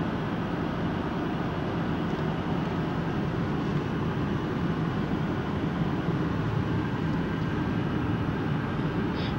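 Steady cabin noise of a jet airliner in flight: an even rush of airflow and engine drone with a low hum underneath, heard from a window seat.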